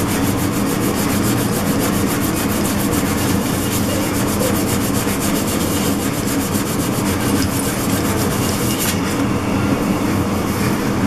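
80-grit Abranet mesh abrasive rubbed by hand over a Cerakote-coated metal plate in quick, even back-and-forth strokes that stop about nine seconds in. A steady low hum runs underneath.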